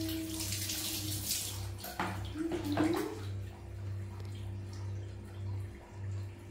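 Water poured from a plastic scoop splashing over a baby monkey during a bath, in two spells in the first three seconds, then quieter dripping. A brief voice-like sound rises about two and a half seconds in, over a steady low hum.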